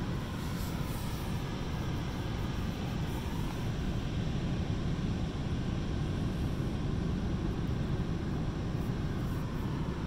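Pacific Ocean surf breaking on a wide sandy beach: a steady, unbroken wash of distant breakers with no single wave standing out.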